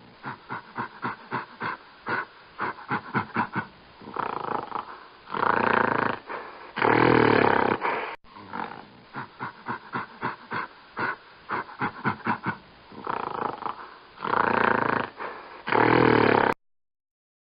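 Gorilla calling: a run of short, quick calls about three a second, then a few longer, louder calls, the loudest about 7 s in. The same sequence then plays a second time and cuts off shortly before the end.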